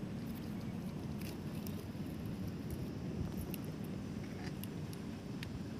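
Wood fire in a brick chulha crackling, with scattered sharp pops over a steady low background noise.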